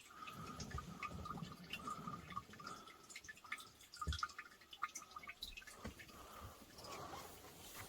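Water dripping irregularly from a Waterdrop straw filter hung under a gravity water bag.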